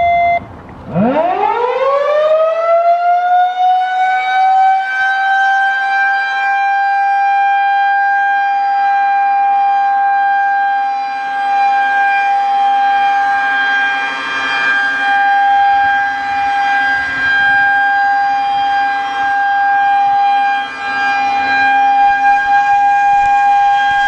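Federal Signal 2001-130 rotating outdoor warning siren starting up. About a second in its pitch climbs steeply for a few seconds, then it holds one steady pitch, the Alert signal, swelling and dipping in loudness as the horn turns.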